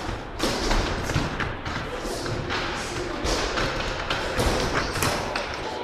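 Kicks and punches landing on handheld foam kick shields: many overlapping thumps in an irregular stream, several a second.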